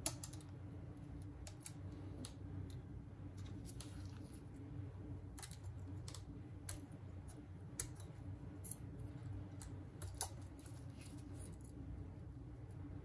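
Scattered light clicks and taps of small hand tools against a smartphone's parts during a repair, a few sharper clicks standing out, over a steady low hum.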